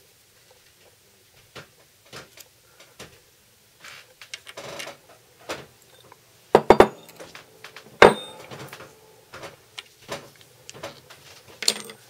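Clicks, knocks and metallic clinks of small tools and knife parts being handled and set down on a wooden workbench, with a quick cluster of sharp knocks about six and a half seconds in and the loudest single knock at about eight seconds.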